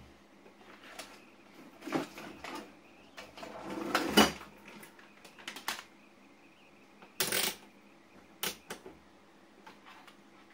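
Small tools and wires being handled on a workbench: scattered clicks and light clatter from rummaging in a tool tray and picking up multimeter test leads, louder about four seconds and about seven seconds in.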